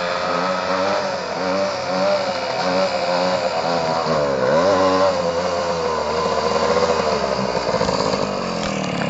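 Two-stroke Jawa moped engine running hard, its pitch wavering up and down. About halfway through the pitch drops sharply and then climbs again.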